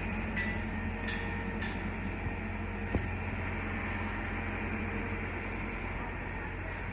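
Steady low rumble of a vehicle in motion, with a few light clicks in the first two seconds.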